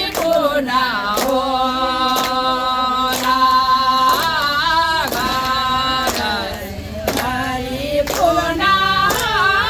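Several women singing a slow song together without instruments, in long held notes with sliding pitch, with hands clapping about once a second.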